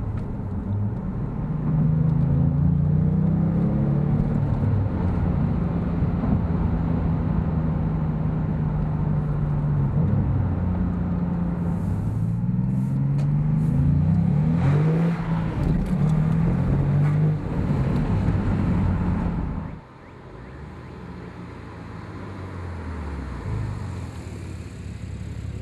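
Porsche 997.2 Turbo's 3.8-litre twin-turbo flat-six through a Fabspeed 70mm Maxflo sport exhaust, heard from inside the cabin with the roof up as the car is driven. The engine note climbs in pitch early on and again about halfway, holding steady between, then drops suddenly to a much quieter running note near the end.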